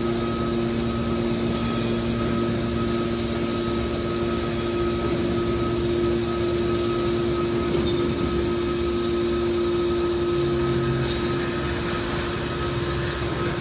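Hydraulic metal baler's power unit running with a steady machine hum and a few held tones over a noisy background.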